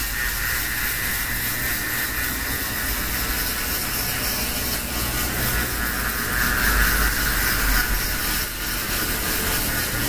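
Handheld electric shaver running steadily while it is passed over a closely shaved scalp, taking the hair down to the skin.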